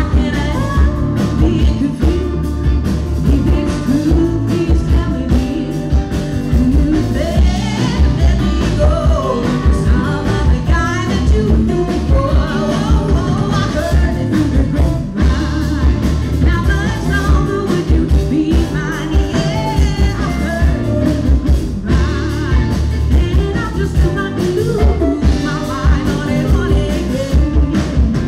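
Live rock band performing: a woman sings lead over drums and electric guitars with a steady beat.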